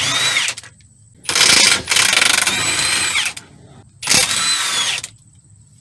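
Cordless impact wrench hammering a 17 mm motor mount nut loose in three bursts: a short one, a longer one of about two seconds, and a third of about a second. Its motor whine drops off at the end of each burst as the trigger is released.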